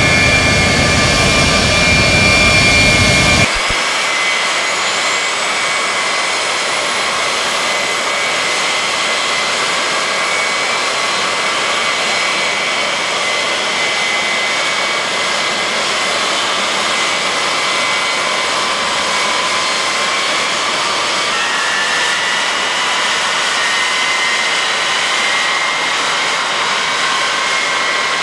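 Four-engine Boeing VC-137C's Pratt & Whitney TF33 (JT3D) turbofans at taxi power. A louder, deeper rumble cuts off about three and a half seconds in, giving way to a steady high-pitched turbine whine with several held tones, which step slightly higher about twenty seconds in.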